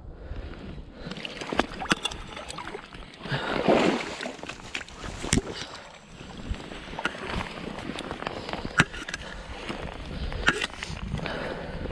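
A landing net holding a fish is lifted out of the river with splashing and sloshing, then carried up a grassy bank: footsteps, rustling and repeated knocks of the net and rod, with wind on the microphone.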